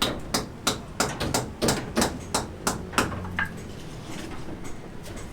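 Hammer blows, struck steadily about three times a second, stopping about three seconds in.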